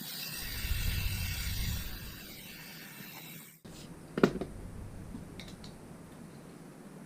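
Mechanical rattling with a low rumble for the first few seconds, then, after an abrupt cut, one sharp click and a few faint ticks.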